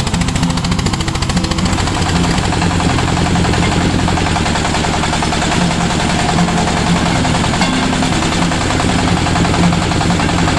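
Diesel engine of an HF300D water-well drilling rig running steadily under load, with a rapid, even knocking beat.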